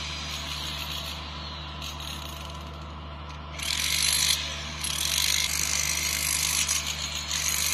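Tools chipping and scraping the concrete top of a bridge bearing pad to roughen it, a raspy scratching that swells louder about three and a half seconds in and again near the end. A steady low machine hum runs underneath.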